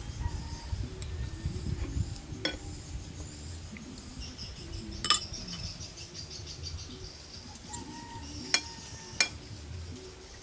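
Metal spoon and fork clinking against a plate and bowl while serving and eating, a handful of sharp clinks spread through, two of the loudest close together near the end. Insects chirp steadily behind.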